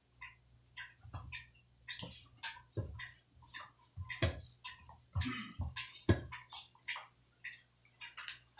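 Hands handling food in a basin, making irregular small wet clicks and taps, several a second.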